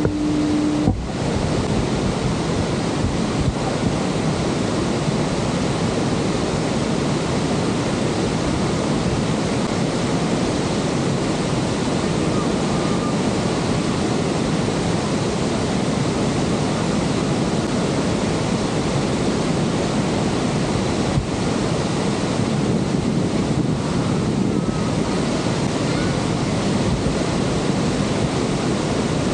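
Steady roar of rushing, falling water at Niagara's Horseshoe Falls, with wind buffeting the microphone.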